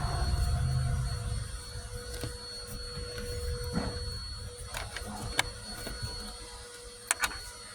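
Handling noise and scattered small metallic clicks from an aftermarket window crank handle being worked onto the door with an Allen wrench. A low rubbing rumble in the first second and a half gives way to sparse ticks, with two sharp clicks in quick succession near the end.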